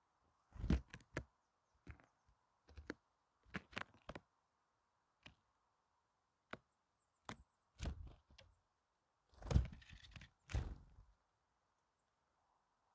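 Great tits landing and hopping right by the microphone on snow and pecking at a pile of seeds: a series of close thumps and taps, loudest about a second in and again around eight to eleven seconds.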